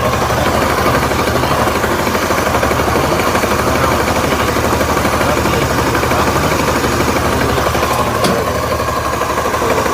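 Suzuki Burgman scooter engine idling with a steady, rapid knocking ("gate gate gate"), the sound the mechanic traces to a worn crankshaft bearing.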